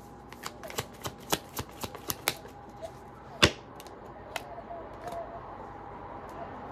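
Tarot cards being shuffled and flicked in the hands: a quick run of sharp card snaps over the first couple of seconds, then one louder slap about three and a half seconds in, and a few scattered clicks after.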